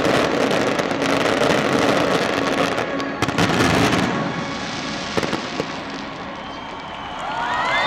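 Fireworks finale: dense crackling and rapid bangs from aerial shells and fountains, with a few louder bangs about three seconds in, then thinning and fading out. Near the end a crowd starts cheering.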